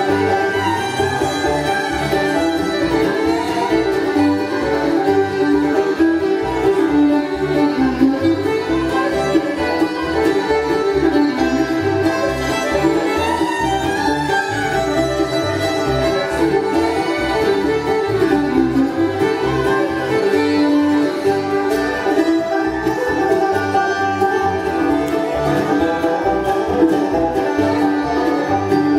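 Bluegrass band playing live: a fiddle carries the lead over banjo, mandolin, acoustic guitar and upright bass keeping a steady beat.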